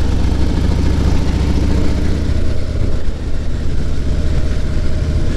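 Motorcycle engine running under way, rising in pitch over the first couple of seconds as it speeds up, then holding steady, with wind and road noise.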